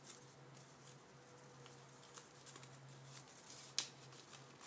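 Faint rustling and crinkling of thin folded paper being unfolded by hand, with scattered small clicks and a sharper crackle near the end. A low steady hum sits underneath.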